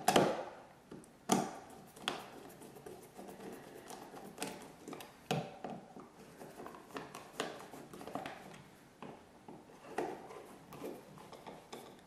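Flathead screwdriver turning the screws of a nylon switch cover plate: irregular small clicks and scrapes of the blade in the screw slots, with short pauses between them.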